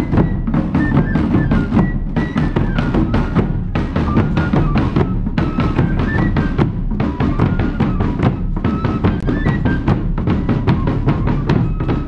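Music with drums beating a dense, steady rhythm under a higher melody line that steps up and down in pitch.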